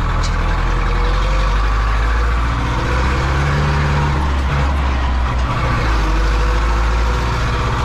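Zetor 7245 Horal tractor's four-cylinder diesel engine running steadily while the tractor drives, heard from inside the cab.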